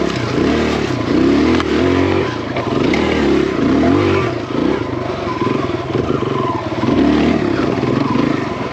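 Kawasaki KLX dirt bike's single-cylinder four-stroke engine revving up and down again and again as it is worked over rough single track, with a few sharp knocks and clatter from the bike.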